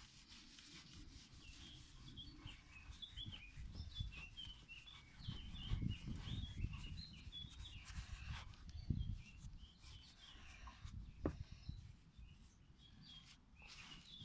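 Soft rubbing of a polishing cloth over a chrome bumper, with low bumps of handling noise, while small birds chirp steadily in the background.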